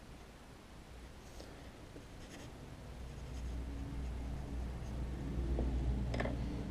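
Pencil scratching on paper as the margin of a print is written on, in short faint strokes. Under it, a low rumble grows louder toward the end.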